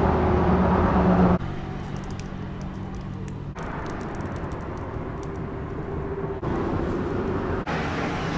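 A steady machine-like hum with a few held low pitches, changing abruptly several times, with a few faint clicks partway through.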